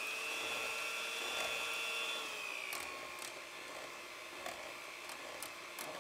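Electric hand mixer beating cold heavy cream in a metal bowl: a steady motor whine that drops a little in pitch and loudness about two seconds in, with a few light clicks.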